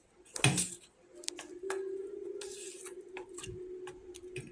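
Thick besan batter being beaten in a steel bowl: irregular wet slaps and clicks, the loudest about half a second in. A steady low hum sits behind them from about a second in.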